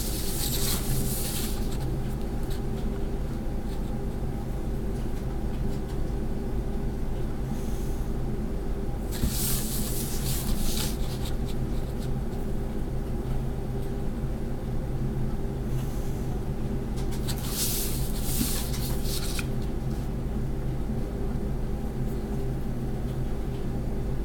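A pen scratching across paper as straight lines are drawn along a ruler: three strokes of a second or two each, at the start, about ten seconds in and about eighteen seconds in. A steady low hum runs underneath throughout.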